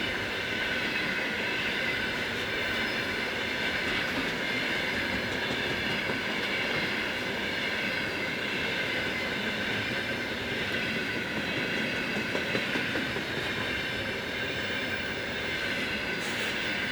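Loaded container flat wagons of a freight train rolling past at about 50 km/h: a steady rolling noise of steel wheels on rail, with a high whine from the wheels that holds throughout.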